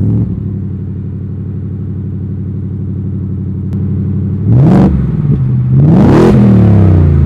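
Ford Raptor R's supercharged 5.2-litre V8, freshly started, idling steadily, then revved twice in the last three seconds, each rev a quick rise and fall in pitch.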